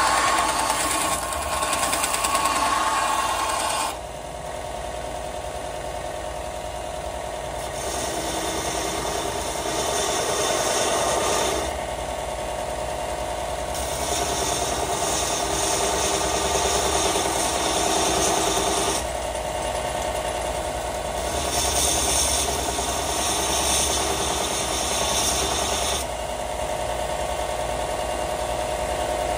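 Small bench belt sander running steadily while a 1095/15N20 Damascus steel blade blank is ground against the belt to profile it. It comes in four passes of a few seconds each, each adding a gritty, high-pitched rasp of steel on abrasive over the motor's hum.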